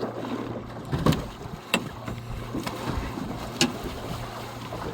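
Sharp knocks and thuds against a small fishing boat, three of them loudest and spread over a few seconds, over a steady low hum. They come as a large gummy shark is being hauled aboard.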